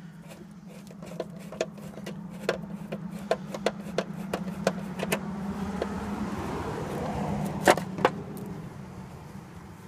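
Hand screwdriver turning quarter-inch screws out of a fiberglass seat pan, with small scattered clicks of tool and screw and a sharper pair of clicks near the end, over a steady low hum.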